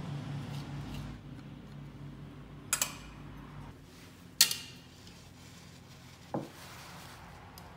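A few clinks and taps of a glass and utensils against a plastic mixing bowl, the sharpest about four and a half seconds in and a duller knock near the end. Soft whisking of the dry flour and oats runs between them. A low hum fades out about halfway through.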